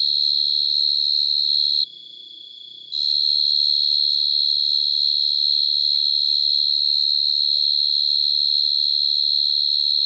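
Cricket trilling in one loud, steady, high-pitched buzz that breaks off about two seconds in, is silent for about a second, then resumes; a fainter second cricket trills steadily underneath.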